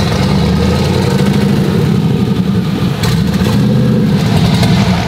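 Twin-turbocharged engine of a 1969 Camaro running at idle with a rapid, uneven pulse.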